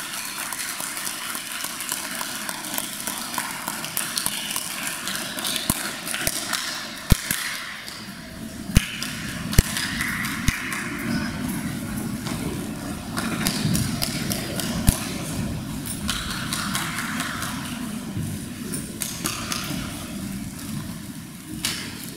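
Hall noise of people moving about: a low murmur of voices with scattered footsteps, knocks and thumps, the sharpest about seven and nine seconds in.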